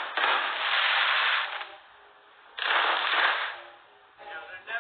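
Fireworks going off in two long barrages of rapid crackling pops, the first about a second and a half long and the second about a second, with a lull between. Heard through a livestream's narrow, muffled phone audio.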